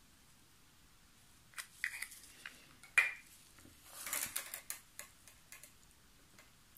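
Light, scattered clicks and taps of small plastic mixing cups and a stirring stick being handled while working with epoxy resin, starting about a second and a half in, with one sharper tap about three seconds in and a quick run of clicks a second later.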